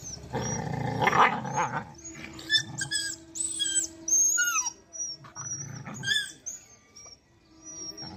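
Two village dogs growling as they wrestle in rough play: one long growl in the first two seconds, loudest about a second in, and a shorter one around six seconds in.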